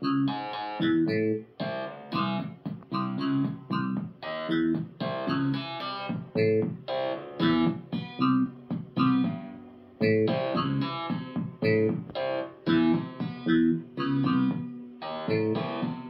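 MiniDexed FM synthesizer playing a sequence of short synth notes and chords, about two a second, each one triggered as the LEGO colour sensor reads a coloured stud.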